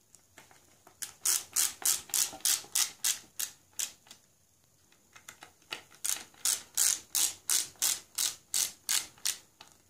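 Hand screwdriver driving a wood screw into a pre-drilled hole in a wooden loom frame, with a rasping stroke on each turn, about three a second. It comes in two runs with a pause of about two seconds between them.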